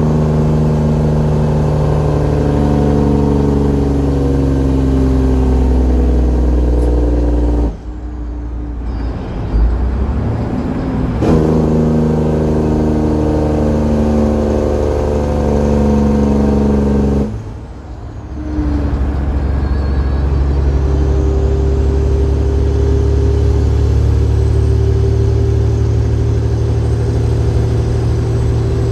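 12.7-litre Detroit Diesel Series 60 inline-six pulling hard under a 135,000 lb load. The engine drops off briefly for a gear shift about a quarter of the way in, with a short rev before it pulls again, and drops off once more a little past halfway before pulling steadily again.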